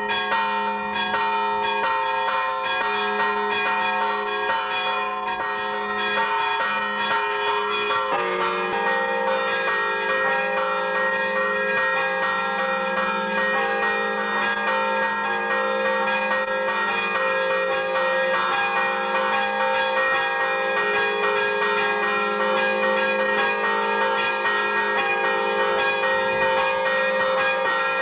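Church bells ringing continuously, several bells struck in quick overlapping strokes; about eight seconds in the ringing grows fuller, with lower bells joining.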